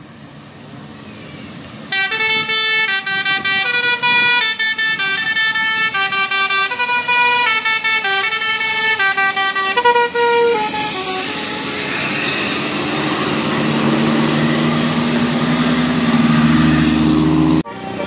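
A tour bus's telolet horn plays a quick tune, several notes a second. Then the Mercedes-Benz bus passes close, its engine note rising under the rush of tyres and air, and the sound cuts off suddenly near the end.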